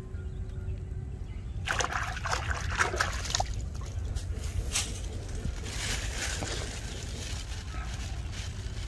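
Wet mud and water squelching and splashing under hands, in irregular bursts about two seconds in and again near the middle, over a steady low rumble.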